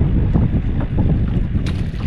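Wind buffeting the microphone in a loud, uneven rumble over water slapping a small boat's hull, with a brief sharp splash near the end as a hooked fish reaches the surface.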